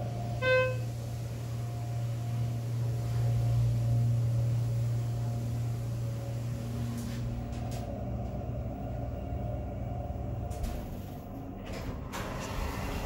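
Schindler 330A hydraulic elevator running up, its pump motor giving a steady low hum. A single short electronic beep sounds about half a second in as the car reaches the second floor. The hum fades out about ten seconds in as the car levels and stops, and a rush of noise near the end is the doors sliding open.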